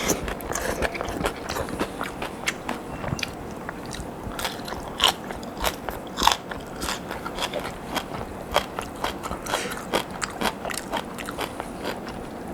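Crisp fried potato sticks being bitten and chewed close up: an irregular run of sharp crunches, several a second.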